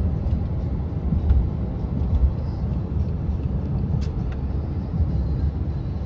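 Car driving: a steady low rumble of engine and road noise, with no clear tones or separate events.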